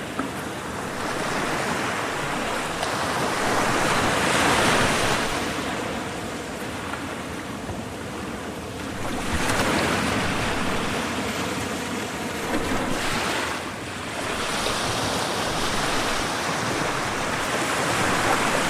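Ocean waves breaking and washing on the shore, a steady rush of surf that swells louder with each wave, several times.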